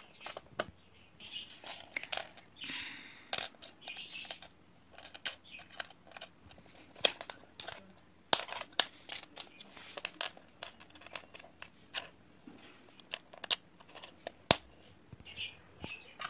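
Plastic Lego bricks being handled and pressed together: many sharp, irregular clicks and clacks, with brief rustling now and then.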